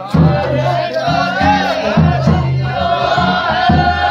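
A group of men singing a Holi folk song together to a steady beat on a chang, a large Rajasthani frame drum.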